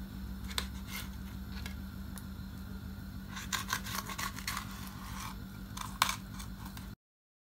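Kitchen knife slicing salmon skin into strips on a wooden cutting board: scattered short scraping cuts and taps of the blade on the board, with a cluster of quick strokes about halfway and a sharper one near the end, over a steady low hum. The sound cuts off suddenly just before the end.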